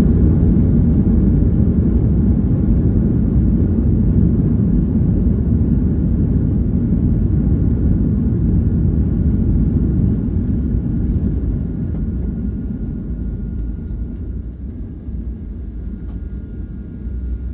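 Cabin noise of a jet airliner rolling out after touchdown: a deep, steady rumble of engines and runway that gradually dies down about halfway through as the aircraft slows.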